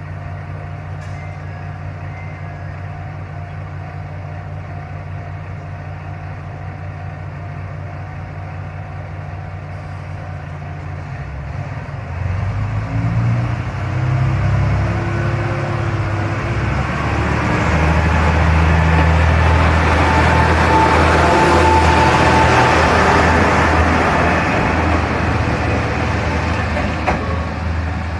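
Kanto Railway KiHa 2000-series diesel railcar idling at the platform with a steady low engine hum; about twelve seconds in the engine revs up as the railcar pulls away, growing louder and then easing off as it moves down the line.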